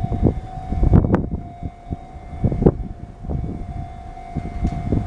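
Sotetsu electric train running noise: a low rumble broken by irregular thumps, with a steady high-pitched whine throughout.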